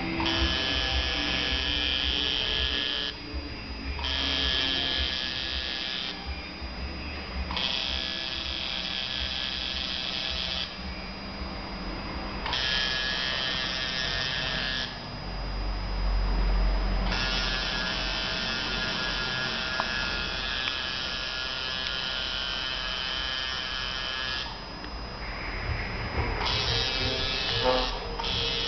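Coil tattoo machine buzzing as it works ink into skin. It starts and stops about six times, in runs of a few seconds with short pauses between.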